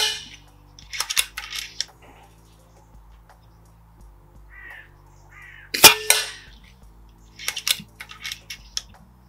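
A Norica Viriatus .22 regulated PCP bullpup air rifle fires one sharp, loud shot about six seconds in. About a second after the shot that came just before, and again after this one, there is a quick run of metallic clicks from the action being cycled to chamber the next pellet from the magazine.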